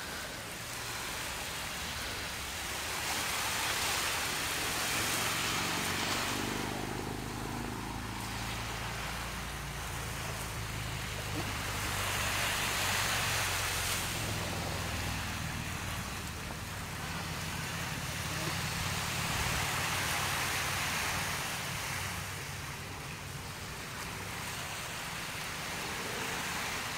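Small waves washing on a sandy shore, the hiss swelling and fading every few seconds, over a low steady hum.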